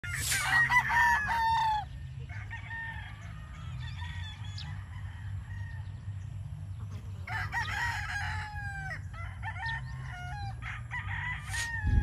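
Gamefowl roosters crowing one after another, with a loud crow at the start and another about seven seconds in, and fainter crows from farther birds in between. A low steady rumble runs underneath.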